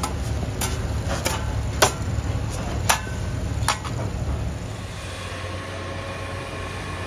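Steel shovel blade clanking against a red-hot cast brake disc and the coals around it: five sharp clanks over about four seconds above a steady low rumble. After that the clanks stop and a steadier, quieter hum remains.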